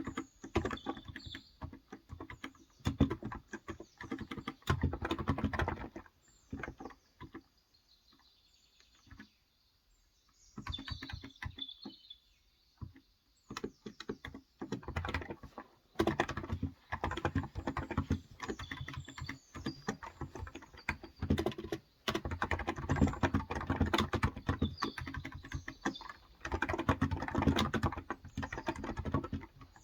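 Typing on a Cox Endeavor electrostatic-capacitive (Topre-style) tenkeyless keyboard with 35 g switches: runs of keystrokes, falling quiet for a few seconds about a quarter of the way in. Birds chirp faintly in the background.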